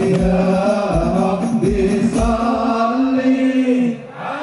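Sholawat devotional chanting: male voices singing with drum beats under the first half, then a long held note that drops away near the end.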